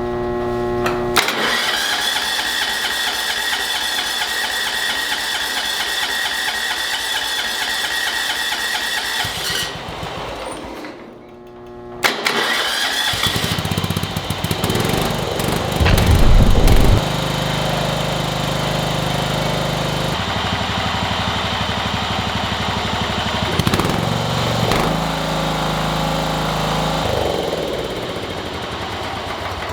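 John Deere Hydro 185 lawn tractor's starter cranking the engine with a steady whine for about eight seconds, then a pause. About twelve seconds in, the engine catches on the second try and runs, surging loudest briefly a few seconds later before settling to a steady run. It starts now that the reversed connections have been put right.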